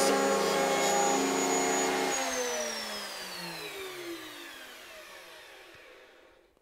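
Table-mounted router running steadily with a dovetail bit, then switched off about two seconds in and spinning down, its whine falling in pitch and fading away over the next few seconds.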